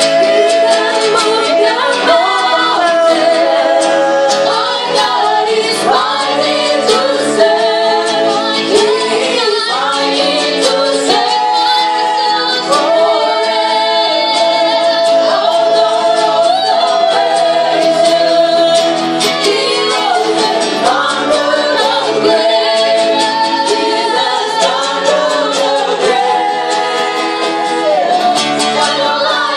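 A vocal group sings a worship song, with female voices leading. The lines are sustained and sliding, with no clearly sung lyrics.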